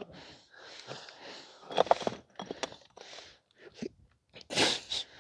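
Boots and gear scuffing and crunching on rough rock and grit during a roped descent, with scattered small knocks and clicks. There is a brief louder cluster about two seconds in and a louder rushing scrape near the end.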